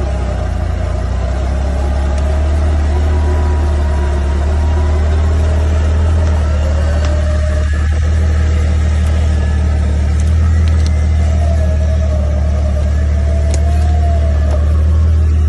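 Off-road vehicle engine running steadily with a deep hum, its pitch wavering slightly.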